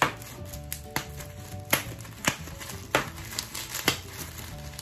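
Bubble wrap popped between the fingers: about six sharp pops, one every half second to second, with crinkling of the plastic, over background music.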